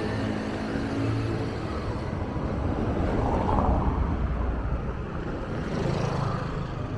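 Street traffic: a motor scooter's engine running as it passes, over a steady low rumble of vehicles, loudest about three to four seconds in.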